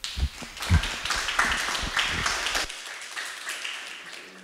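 Small audience applauding, the clapping slowly fading toward the end, with a couple of low thumps in the first second.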